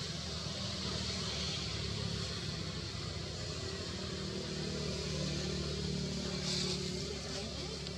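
Steady low hum of a motor vehicle engine running, under a continuous hiss, with a short higher hiss about six and a half seconds in.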